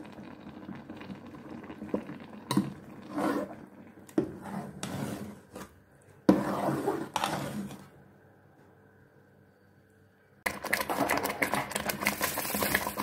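Metal spoon scraping and knocking against an aluminium pot as thick blended saag (greens) is stirred. After a short quiet spell, about ten seconds in, the thick saag starts bubbling, a dense run of rapid crackly pops.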